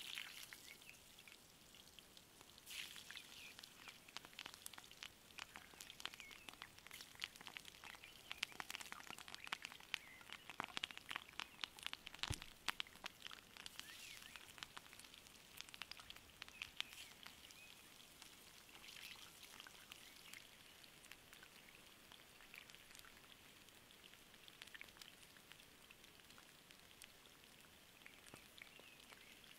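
Whole potatoes frying in oil in a cast-iron pan: a dense crackle of tiny pops and spits, busiest about ten seconds in, thinning to a soft sizzle over the last third.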